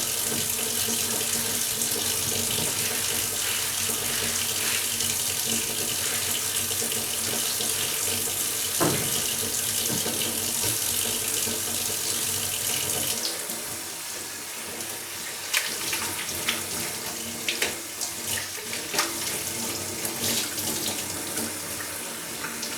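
Water running steadily from a tap, which stops abruptly about halfway through; after it come scattered splashes, drips and knocks of wet cleaning being done by hand.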